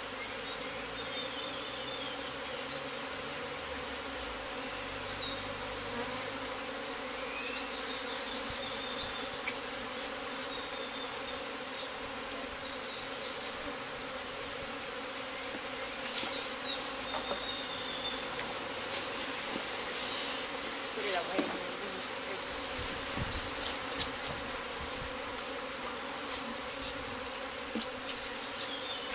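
A mass of honey bees flying around an opened hive, giving a steady, dense buzzing hum. A few sharp knocks and clicks come through in the second half.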